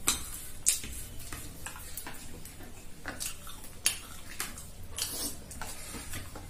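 Metal spoons clinking and scraping against bowls and plates while eating, a scattered series of short sharp clinks, the loudest right at the start, just under a second in and about four seconds in.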